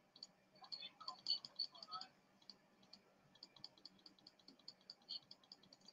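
Faint clicking of a computer mouse and keyboard: many small, quiet ticks a fraction of a second apart. A faint voice is heard briefly about a second in.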